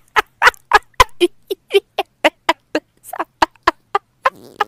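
A woman laughing in quick, evenly repeated bursts, about three or four a second, like a gobble.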